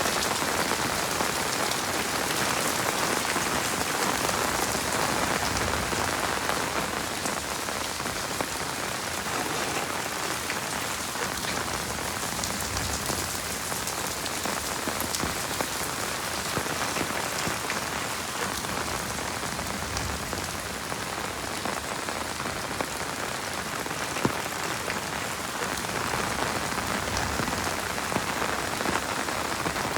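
Heavy rain falling steadily: an even hiss with scattered sharp drop ticks.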